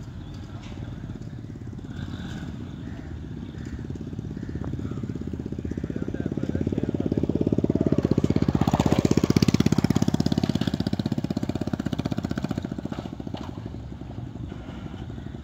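A motor vehicle's engine passing by, with a rapid even pulse, growing louder to a peak about nine seconds in and then fading away.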